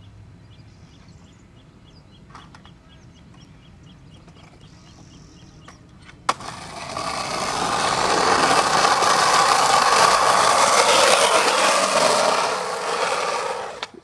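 A skateboard gives one sharp clack about six seconds in. Its wheels then roll loudly over rough, cracked asphalt for about seven seconds as the rider goes downhill, and the sound fades and cuts out near the end. Before the clack there is only a faint, regular ticking.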